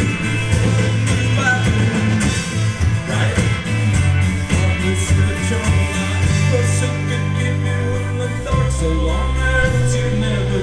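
Live rock band playing, with drums, guitars and a lead vocal. Sustained low bass notes hold under the last few seconds.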